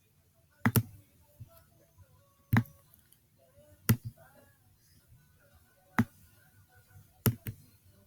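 Sharp computer mouse clicks, single and in quick pairs, every second or two, over faint radio music.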